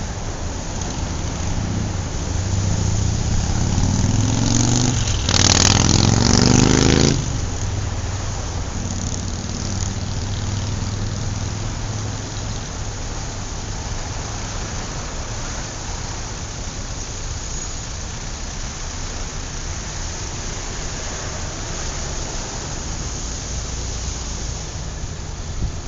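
City street traffic: a steady low rumble of engines. One vehicle's engine climbs in pitch as it accelerates close by and is loudest about five to seven seconds in, then drops away suddenly, leaving the general traffic rumble.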